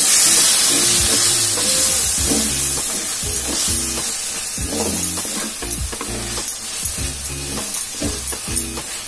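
Thick onion-tomato masala sizzling in hot oil in a metal pot, stirred and scraped with a wooden spatula that clicks and knocks against the pot. The sizzle is loudest at first and thins out, while the scraping clicks come more often later on.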